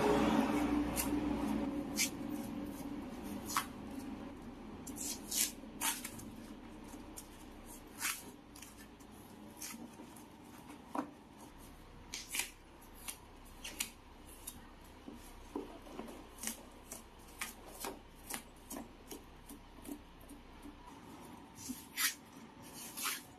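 Sharp clicks and snaps of plastic panel clips and hand tools as a refrigerator's rear panel is pried off, scattered about once a second, after a louder rough scraping noise that fades over the first few seconds.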